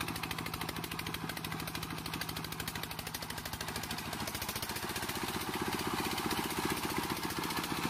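Walk-behind tractor engine running with a steady, rapid chugging beat, growing a little louder about halfway through.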